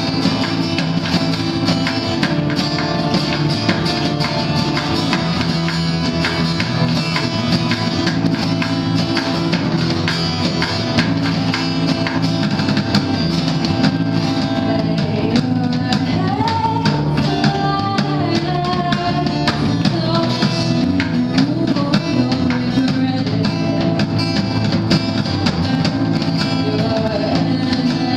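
A band playing live acoustic music: guitars with drums, a dense, steady sound with no break.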